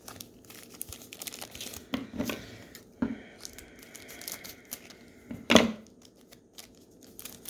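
1990-91 NBA Hoops cards and their pack wrappers being handled: a run of crinkling and light clicks, with one louder sharp rustle about five and a half seconds in.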